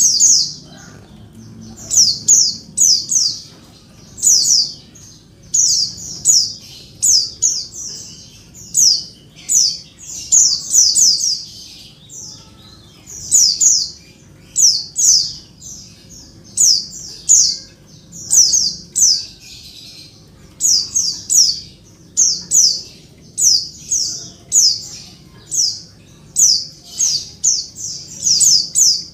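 Female white-eye (pleci) calling insistently for a male: short, sharp, high notes in quick runs of two to four, repeated about once a second.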